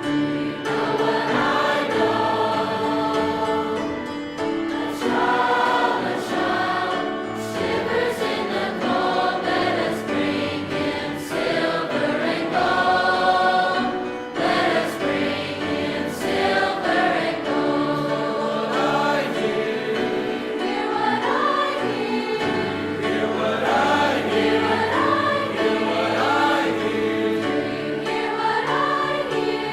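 A high school choir singing in parts, with an instrumental accompaniment holding low notes underneath.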